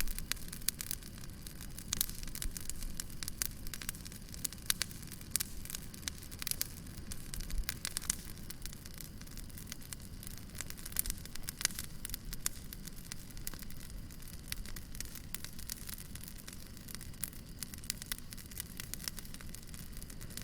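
Wood fire crackling, with frequent small sharp pops and snaps over a steady low hiss and rumble of the flames.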